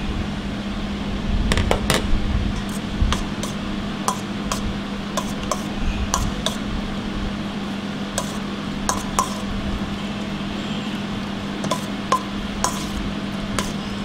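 Scattered light clinks and taps on a stainless steel mixing bowl as salad is spooned into it and tossed, a little louder about two seconds in, over a steady low hum.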